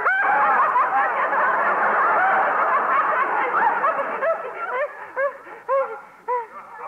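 Studio audience laughing heartily at a radio sitcom gag. After about four seconds the laughter thins out into a few scattered lone laughs.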